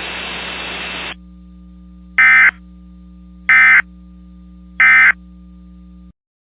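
Mock Emergency Alert System broadcast closing: about a second of radio static, then three short, loud bursts of SAME digital data, the end-of-message code, each about a third of a second long and spaced about a second and a quarter apart. A low steady hum runs under them and cuts off about six seconds in.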